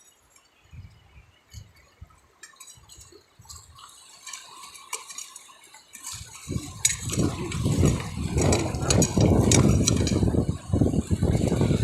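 Water sloshing and splashing with small hard clinks. It is faint at first, then turns loud about halfway through.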